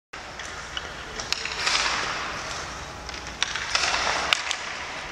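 Ice hockey practice sounds: several sharp cracks of sticks striking pucks and pucks hitting the boards, over the scrape and hiss of skates on the ice.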